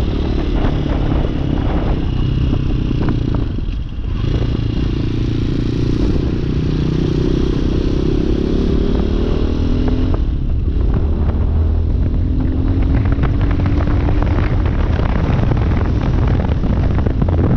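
Hawk 250 dual-sport motorcycle's single-cylinder four-stroke engine running under acceleration, heard from the rider's seat. Its note climbs, drops back briefly about four seconds in and again about ten seconds in as the rider shifts up a gear, then climbs again.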